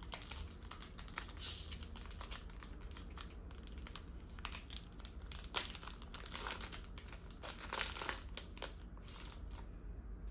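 Trading cards being handled and flipped through one after another: a steady run of short, light rustles and flicks of card stock.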